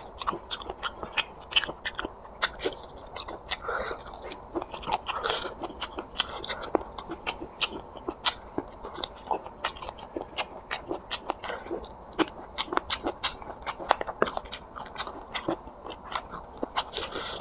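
Close-miked mouth sounds of someone eating curry and rice: wet chewing and lip smacking with many short clicks, several a second.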